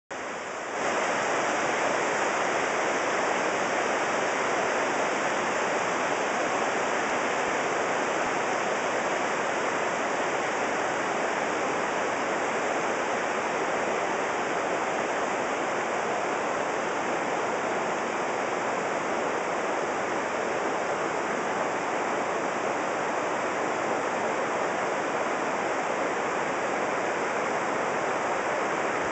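Shallow rocky river running over boulders: a steady, unbroken rush of water that comes up to full level about a second in.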